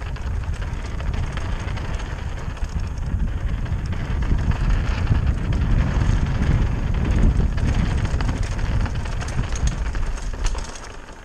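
Wind buffeting the microphone of a mountain bike descending a dirt singletrack, with tyre noise on the dirt and rattles from the bike, busier in the second half. It quietens just before the end.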